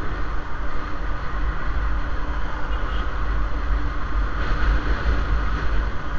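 Riding noise from a motorcycle on the move: wind buffeting the action camera's microphone as a heavy, unsteady low rumble over engine and road noise.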